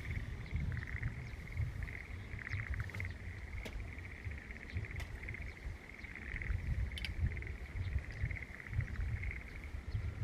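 A continuous chorus of frogs, a steady fast-pulsing trill, over an uneven low rumble, with a few faint clicks.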